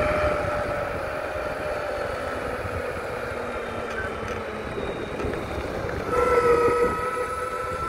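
SYL-08 V3 electric mountainboard riding off-road: the electric motors whine over a steady rumble of the tyres and wind. The whine slowly falls in pitch, then comes back louder and stronger about six seconds in, as the board speeds up.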